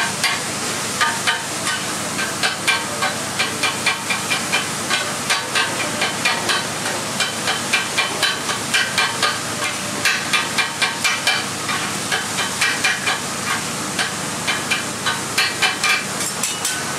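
Metal spatulas striking a flat-top griddle in quick, rhythmic clanks, about two to three a second, as chicken is chopped on it. Underneath runs a steady sizzling hiss of frying.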